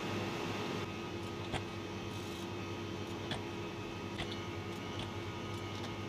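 Steady low hum of a computer and room, with a few faint, short clicks scattered through it.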